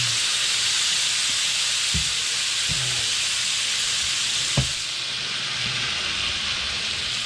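A whole trout frying in a cast-iron skillet of oil and butter, sizzling steadily as freshly squeezed lemon juice cooks in the hot fat. A few soft low knocks come through, the sharpest about halfway.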